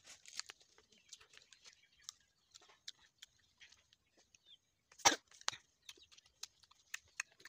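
Close-up mouth sounds of someone eating fresh Indian jujube (ber) fruit: small wet clicks and crunches of chewing, with two loud crunchy bites about five seconds in.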